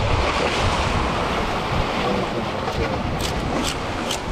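Surf washing into a rock channel, with wind on the microphone. About three seconds in, a knife starts scraping along a fish's side in short strokes, roughly two a second, as it scales the fish.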